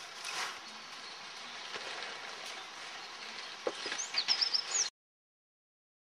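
Outdoor evening ambience: a steady soft hiss, with a few short high bird chirps and a light knock near the end, then the sound cuts off abruptly to silence about five seconds in.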